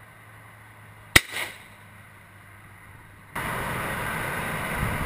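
A single shotgun shot with a short echo about a second in. A little past halfway, a steady background rush starts abruptly.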